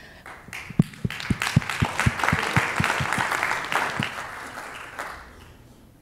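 Audience applauding, with one person's claps close to the microphone standing out at about four a second. The applause fades away near the end.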